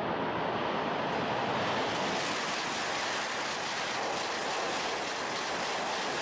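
E5 series Shinkansen train passing at high speed close by: a steady rumble at first, then a loud, brighter rushing noise from about two seconds in as the cars sweep past.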